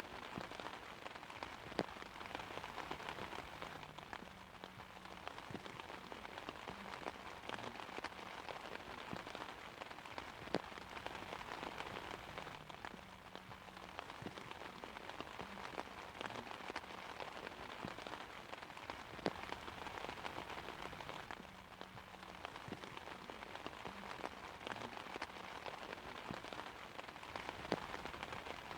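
Steady rain falling on an umbrella: an even hiss dotted with sharp individual drop strikes, a few of them louder than the rest.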